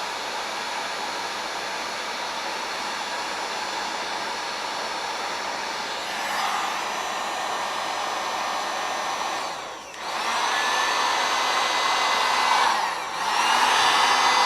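Dual-temperature heat gun blowing steadily, shrinking heat-shrink tubing over soldered wires. It gets louder about six seconds in, dips briefly twice in the second half, and comes back louder each time.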